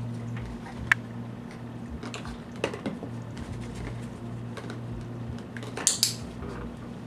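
Hard plastic stacking ring clacking down onto a toy ring-stacker peg in a quick double knock about six seconds in, after a few lighter plastic clicks as a dog picks up and carries the ring. A steady low hum runs underneath.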